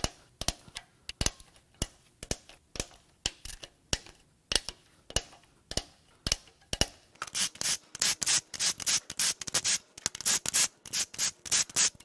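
Hand ratchet clicking as it works the cam cap bolts on a Toyota 2UZ-FE cylinder head loose: single sharp clicks at first, then quicker runs of clicks from about seven seconds in.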